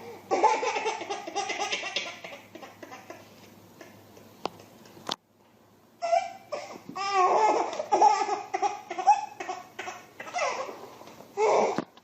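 A baby laughing in repeated belly-laugh bursts. The sound cuts out about five seconds in, and the laughter picks up again a second later.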